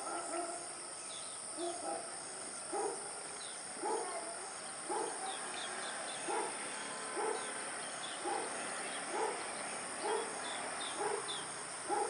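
An animal calling over and over at a steady pace, a short low call about once a second, with faint high chirps of small birds and a steady hiss behind.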